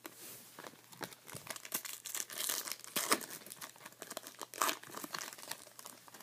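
Foil wrapper of a Topps Chrome football card pack crinkling and tearing as it is ripped open by hand, with scattered clicks of cards being handled. The louder crackles come about two to three seconds in and again near five seconds.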